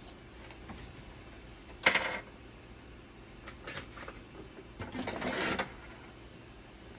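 Two short bursts of mechanical clatter from a dialysis machine, the first sharp and loud about two seconds in, the second longer around five seconds, with a few light clicks between them.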